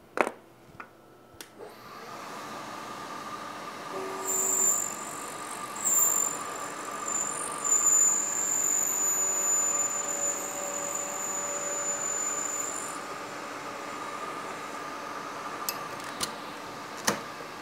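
Milling machine spindle running with an end mill cutting a radius on a small metal part held in a clamping fixture. A few sharp clicks open it; the machine's hum sets in about two seconds in, and a high, thin squeal from the cut comes in about four seconds in and holds for several seconds before dropping away.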